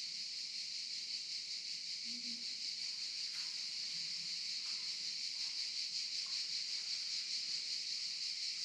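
Cicadas buzzing in a steady, high-pitched chorus.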